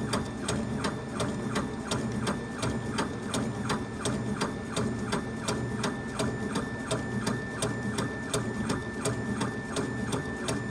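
Laser engraver at work on a wooden faceplate: the head sweeps back and forth with its stepper motors clicking in a rapid, even rhythm over a steady high whine and a low hum, the engraving nearly finished at the bottom of the plate.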